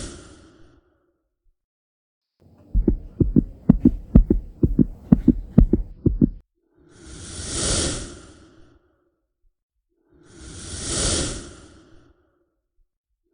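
Heartbeat and whoosh sound effects laid over the picture: a fast run of low heartbeat thuds lasting about four seconds, between breath-like whooshes that swell and fade every three to four seconds.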